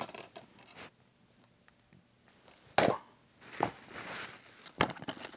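Shrink-wrapped plastic DVD cases being handled and set down on a pile: a few short, sharp taps, about three seconds in, a little later, and near the end, with a soft plastic rustle between.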